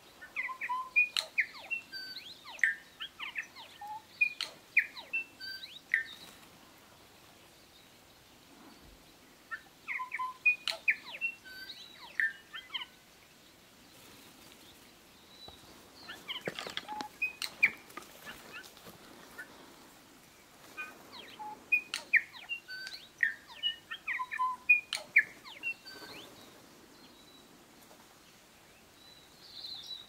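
New Zealand bellbird (korimako) singing. It gives four bursts of short, clear, bell-like notes and quick slurs, each a few seconds long, with pauses of a few seconds between them.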